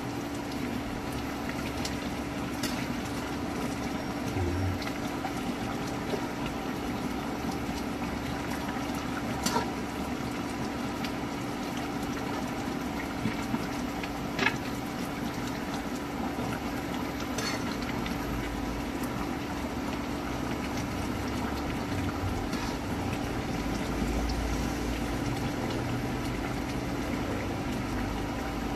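Creamy spinach-and-chicken sauce simmering in a frying pan, a steady bubbling over a constant low hum, with a few light clicks of the spatula against the pan as it is stirred.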